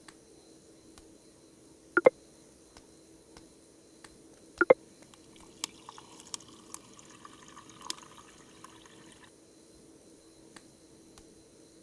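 Two sharp knocks about two and a half seconds apart, then water running for a few seconds and cutting off suddenly. A faint steady hum sits underneath.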